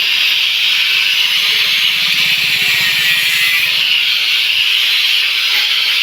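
A motorcycle exhaust pipe being cut with a steady, loud hiss. No separate strokes or rhythm can be picked out.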